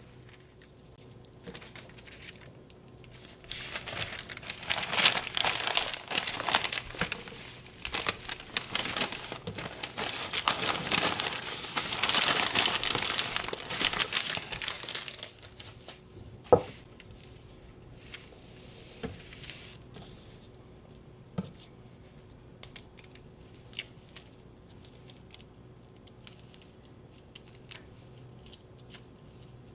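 Papery crinkling and rustling as a head of garlic is broken into cloves over newspaper, loudest for about ten seconds in the middle. After that it goes quieter, with a few sharp taps.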